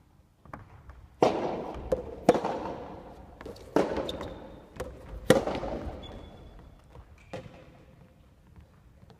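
Soft tennis rally in a gymnasium: four sharp racket-on-ball hits, each ringing on in the hall's echo, with a fainter hit near the end. Between the hits come brief high squeaks of court shoes on the wooden floor.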